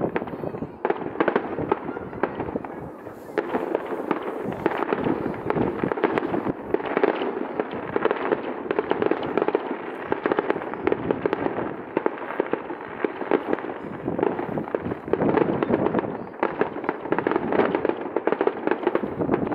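Fireworks bursting in a dense, continuous run of many bangs and crackles a second.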